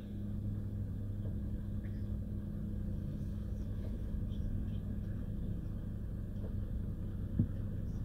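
Bus engine and road rumble heard from inside the cabin while riding, a steady low hum, with a single brief knock about seven seconds in.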